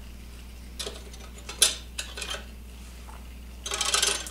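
Small metal battery hardware clinking as it is handled: a few separate light clicks, then a quick rattle of metal about three and a half seconds in.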